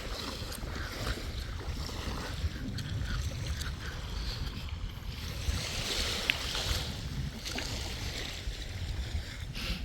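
Wind buffeting the microphone with a steady low rumble, over a soft wash of surf.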